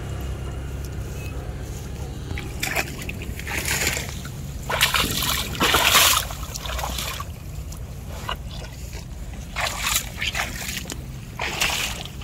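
A cow wading in shallow muddy water, its legs splashing and sloshing in a string of short bursts, the loudest about six seconds in, over a steady low rumble.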